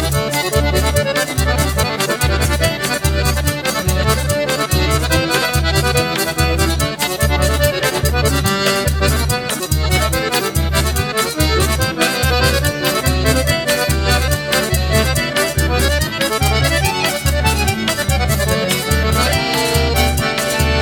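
Instrumental forró pé de serra with no singing: accordion playing the melody over a steady zabumba bass-drum beat and a fast, even triangle pattern.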